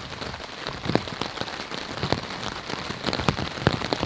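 Steady rain falling, with many irregular sharp taps of drops landing close by.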